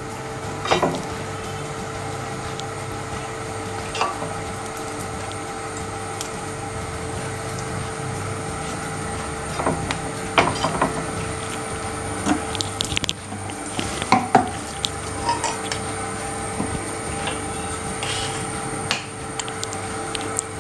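Scattered clinks and knocks of kitchen utensils and dishes, a few at a time, over a steady background hum.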